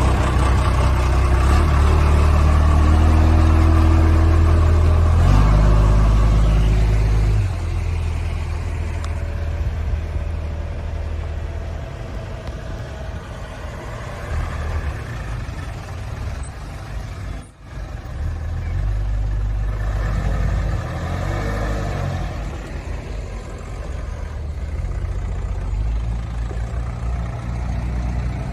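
Vehicle engines pulling away. A heavy, loud low engine rumble passes for the first seven seconds, then quieter engine and road noise from further vehicles.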